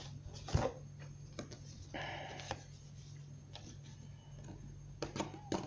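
A tarot deck being shuffled by hand: soft, irregular clicks and taps of card against card, over a steady low hum.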